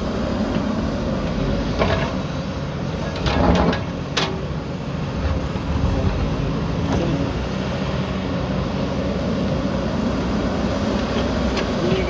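Hyundai 220LC excavator's diesel engine running steadily under load while it digs earth and rock, with a few sharp clunks and rattles, the loudest about three and a half seconds in.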